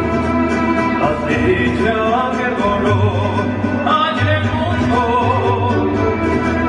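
Mariachi band playing an instrumental passage: violins carry a wavering melody with vibrato over a low guitarrón bass.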